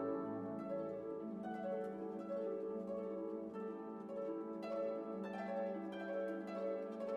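Background music: a slow melody of plucked, harp-like notes over held lower tones.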